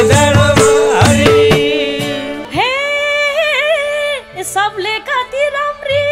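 Nepali live dohori folk music: the band plays with hand-drum strokes, then about two and a half seconds in the drumming stops and a woman sings a long held, wavering note followed by short ornamented phrases.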